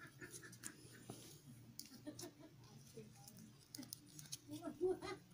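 Faint light clicks and taps of a clear plastic deli cup and lid being handled, a little louder near the end.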